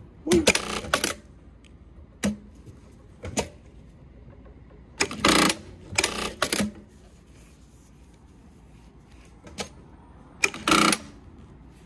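Yamata FY9300-D4 direct-drive industrial straight-stitch sewing machine stitching through two layers of webbing in several short bursts with sharp clicks between them. The bursts are its automatic back-tacking, set to do a lot of back-tacks at the start and finish of the seam.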